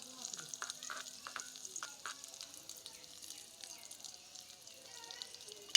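Food sizzling and crackling in hot oil in a pan, with a sharp click at the very end.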